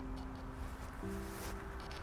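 Background music of slow, held notes that change about once a second, over a steady low rumble.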